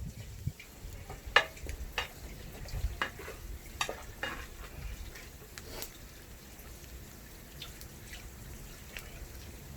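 Kitchen work: irregular light clicks and taps of utensils against pots and dishes, busiest in the first six seconds and then dying down to a faint background.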